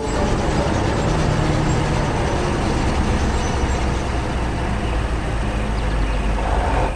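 Heavy vehicle engine running steadily, loud and low-pitched, cutting off suddenly at the end.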